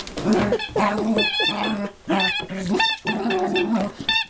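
A dog's squeaky toy being squeezed and chewed, squeaking over and over in short, high, wavering squeals.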